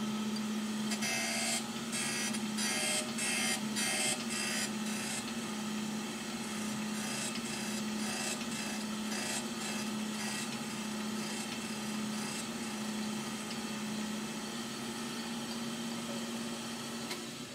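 Surface grinder with its spindle motor humming steadily while the abrasive wheel grinds a bevel on a hardened chuck jaw. The cutting gives a hissing rasp in regular strokes about twice a second, stronger in the first few seconds and then lighter. This is a light clean-up pass to remove chatter marks.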